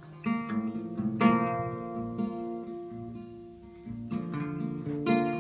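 Acoustic guitar playing an instrumental gap in a live indie-folk song: a few chords are strummed, each left to ring and fade before the next.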